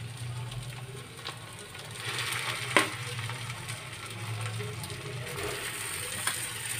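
Onion, cumin and green chillies frying softly in hot mustard oil in a kadhai as mashed potato is dropped in, with a steady faint sizzle. Two sharp knocks cut through it, one about three seconds in and one near the end.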